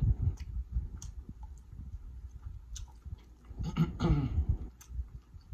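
A person chewing a mouthful of sauced seafood-boil shellfish, with scattered small mouth clicks and a short voiced hum about four seconds in.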